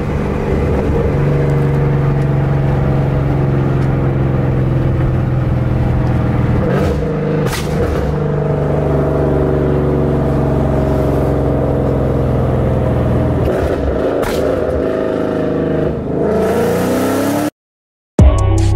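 A Ford Mustang GT's 5.0 Coyote V8 with a loud exhaust running steadily while driving, its pitch shifting a little, with a few sharp cracks along the way. Near the end the sound cuts off abruptly and music begins.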